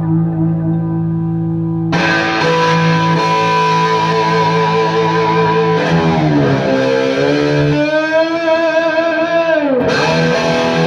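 Electric guitar played through a Bad Cat Siamese Drive overdrive pedal and 3rd Power amplifier, with chords held and left ringing. A brighter chord is struck about two seconds in, and later the pitch of the ringing chord twice sags down and swings back up.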